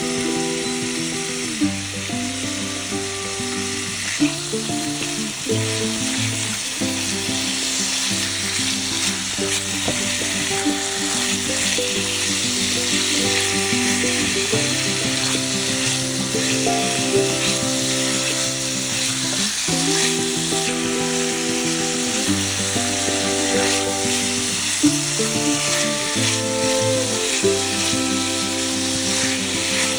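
Small cubes of pork frying and sizzling in hot oil in a pan, being turned now and then. Background music with a melody of held notes plays over it.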